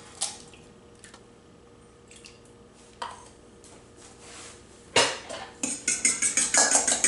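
Fork beating egg and milk in a stainless steel mixing bowl. After a quiet first few seconds with a few small knocks, rapid metal clinks start about five seconds in, about five a second.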